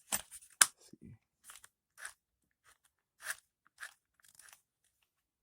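Irregular clicks and crunches of hard plastic parts on a disassembled RC truck being handled and moved, the loudest about half a second in, thinning out after about four and a half seconds.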